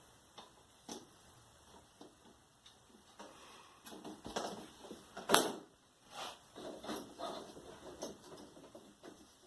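Plastic diffuser sheets and panels of an LED TV being handled and laid into place: scattered light taps, rustles and scrapes, with one sharp click about five seconds in.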